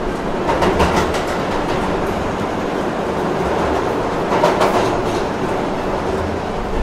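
Train running on rails, a steady rolling noise of wheels on track that swells briefly twice, about a second in and again about four and a half seconds in.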